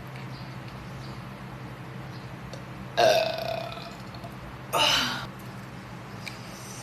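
A woman belching twice. The first is a long, loud, pitched belch about three seconds in, sagging slightly in pitch. The second, shorter one follows a second and a half later.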